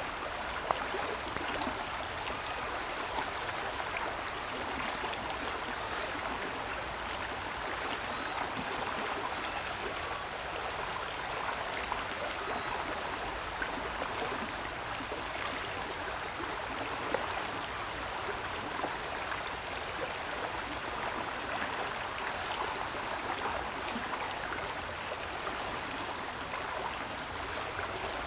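Steady rush of running water, unchanging throughout, with a couple of faint clicks.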